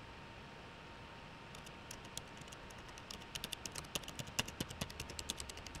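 Typing on a computer keyboard: a few scattered keystrokes at first, then a quick run of key clicks over the last few seconds.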